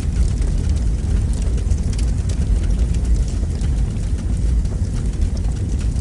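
A fire burning in a fireplace: a steady low roar with scattered light crackles.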